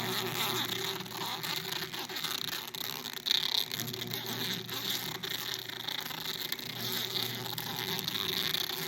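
Hakka electric sausage stuffer's motor running steadily at its slowest setting, a constant buzzing hum, as it pushes meat into snack stick casings. A brief louder sound comes about three seconds in.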